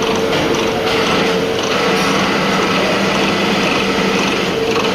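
CNC milling machine running, its cutter at work, with a steady mid-pitched whine over a dense, fast rattle.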